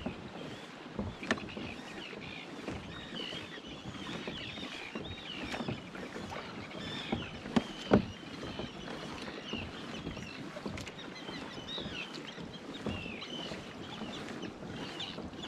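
Water lapping and gurgling against the hull of a Hobie Tandem Island sailing kayak under way, with a few knocks on the boat, the loudest about eight seconds in.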